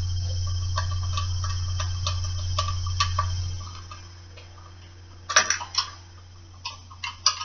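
Lug nuts being taken off a car wheel with a wrench: a slow series of metallic ticks about twice a second, then several loud metal clinks near the end as the nuts come off.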